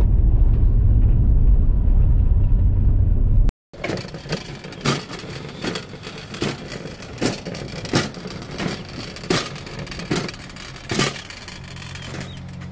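Vehicle cabin noise: a loud, steady low rumble of engine and tyres while driving on a rough, snowy dirt road. After an abrupt cut about three and a half seconds in, a wire shopping cart rattles and clicks as it is pushed, with a low steady hum near the end.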